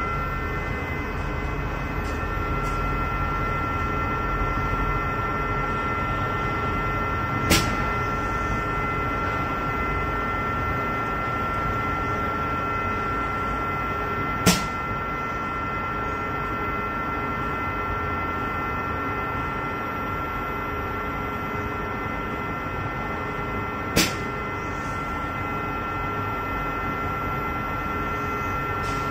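UV ink dispenser machine running with a steady mechanical hum and a few high whining tones over it. Three sharp clicks are spaced several seconds apart.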